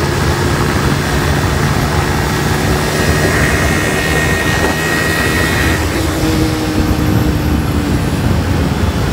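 Yamaha R15 motorcycle's single-cylinder four-stroke engine running at a steady cruise, mixed with loud wind rush over the microphone.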